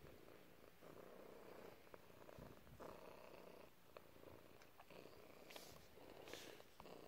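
Domestic cat purring close to the microphone, a soft rumble that comes in waves of about a second with short breaks as the cat breathes.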